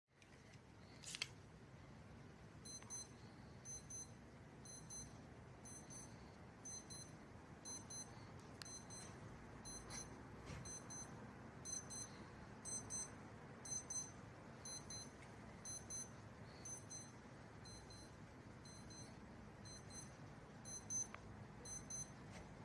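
An electronic alarm beeping in quick groups of short, high beeps, about once a second. A sharp click comes about a second in, with a few fainter clicks later.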